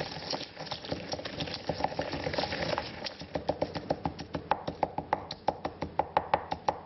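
Pestle pounding and grinding dried chillies in a mortar. A dense grinding clatter gives way, about halfway through, to a fast, even run of sharp knocks, about six a second, each with a short ring.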